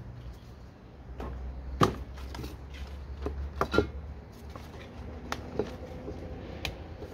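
Scattered knocks and clicks of spray-paint cans and painting materials being picked up, handled and set down on a wooden table, about ten in all, the loudest about two seconds in, over a low rumble.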